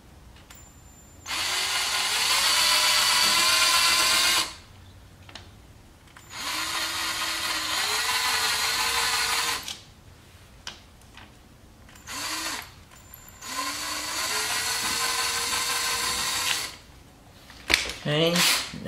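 Cordless drill boring holes through a car's plastic rear bumper cover in three careful runs of about three seconds each, with a short burst between the second and third. The motor's pitch climbs as each run starts. A few clicks near the end.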